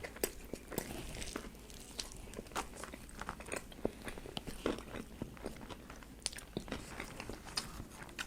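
A person chewing a mouthful of Italian beef sandwich with cheese sauce, close to the microphone: a steady run of irregular small mouth clicks and bites.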